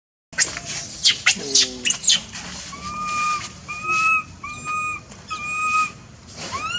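Shrill animal calls: a few high, arching screeches in the first two seconds, then four short, even whistled notes about a second apart, and a rising call near the end.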